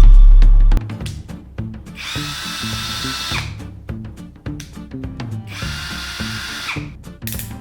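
A very loud deep bass boom opens over a steady music beat. Then a Worx WX352 brushless cordless drill runs twice, each time for about a second and a half, and its motor whine falls away as it winds down.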